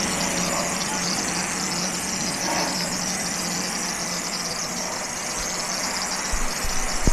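A machine running steadily: a motor hum under a loud, even hiss.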